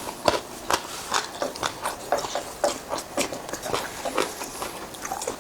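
Close-up eating sounds: a person chewing food, with irregular wet smacks and clicks of the mouth.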